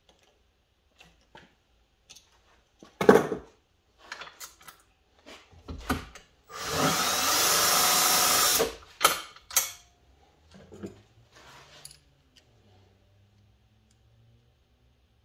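Cordless drill spinning a vise-mounted cartridge case trimmer for about two seconds, cutting a 6.5 Creedmoor brass case to length. Around it are clicks and handling knocks of fitting the case and drill, the loudest a sharp knock about three seconds in.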